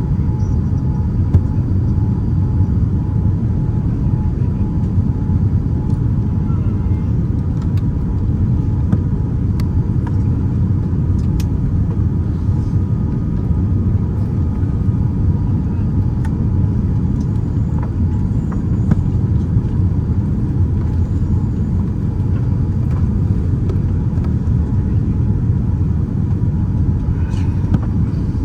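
Steady low rumble inside the cabin of a Boeing 787-9 airliner, the constant drone of engines and airflow, with a faint steady hum above it.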